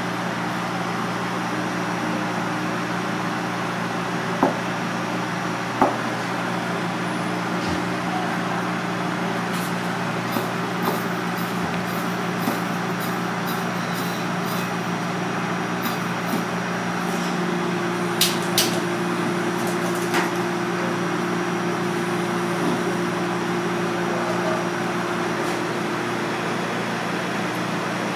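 Steady hum of running kitchen machinery, with a few sharp clicks and knocks of dishes and utensils being handled, a quick pair of them a little past the middle.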